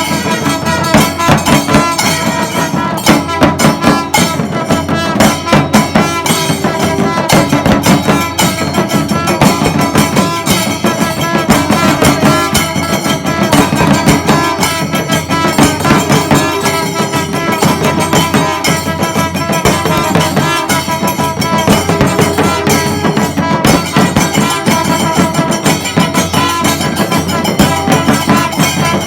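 Kailaya vathiyam ensemble of Tamil temple percussion and horns playing: dense, continuous drumming and cymbal strokes under steady held tones.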